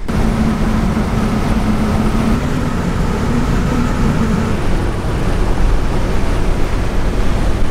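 Nissan Patrol driving on the road, heard from inside the cabin: steady engine and road noise, with a low hum that drops away about halfway through.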